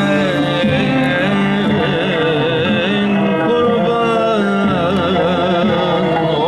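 Live Turkish ilahi (religious hymn) ensemble music: a violin plays a melody with wavering, ornamented turns over steady sustained accompaniment.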